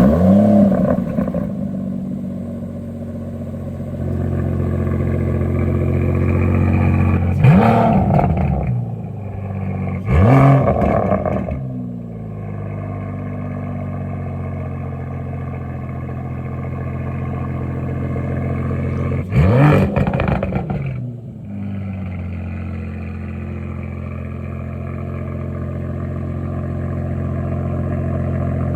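Aston Martin DBS Superleggera's twin-turbo V12 flaring as it catches at start-up, then idling steadily. Three short throttle blips about 7, 10 and 19 seconds in, each rising and falling back to idle.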